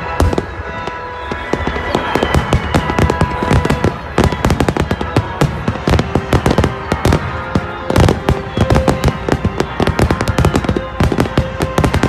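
Aerial fireworks bursting in a rapid, dense barrage: many sharp bangs and crackles only a fraction of a second apart, with music playing underneath.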